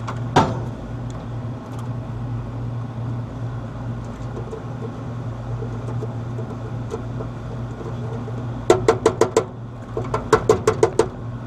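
A steady low hum, with a single sharp click about half a second in and two quick runs of rapid, evenly spaced clicking near the end, about seven clicks in each run.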